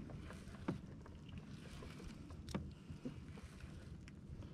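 Faint, low, steady rumble of water moving against a fishing kayak's hull, with a few scattered light clicks, the sharpest about two and a half seconds in.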